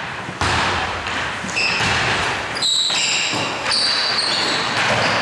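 Basketball bouncing on a gym floor during play, about once a second, with high squeaks of sneakers on the court in the middle seconds.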